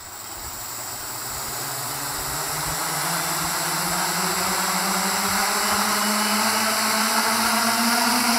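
Hexacopter's six electric motors and propellers spinning up together on the ground, a hum rising steadily in pitch and loudness as the throttle is slowly advanced toward lift-off under a heavy payload.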